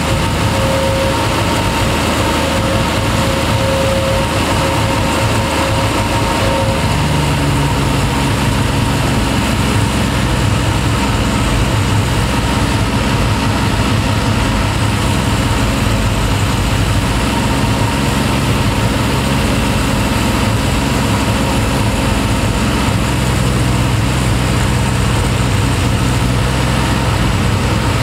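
Triumph TR6's 2.5-litre straight-six idling steadily, with air drawn in through an airflow meter held over a Zenith-Stromberg carburetor intake while the twin carbs are balanced and the idle set. The engine note shifts about seven seconds in.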